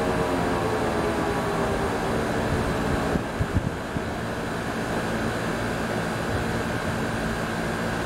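H&B Denver Quadruplex mechanical siren winding down after a short blast, its tone falling steadily in pitch and fading into a steady rushing noise. A few short knocks about three and a half seconds in.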